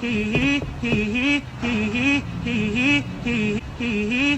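A car's starter cranking the engine over slowly in a repeating rising-and-falling groan, about once a second, without the engine catching: the car won't start.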